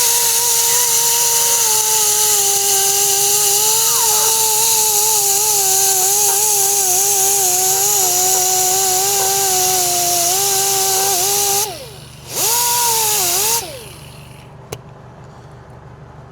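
Grinder with a red surface-conditioning disc grinding curb rash off an alloy wheel: a steady high whine over a hiss of abrasion, the pitch sagging slightly as it bears on the rim. About three-quarters of the way through it stops, runs up once more briefly, then stops again.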